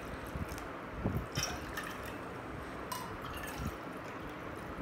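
Water pouring steadily from a steel measuring cup into a glass bowl, with a couple of light clinks of the vessels.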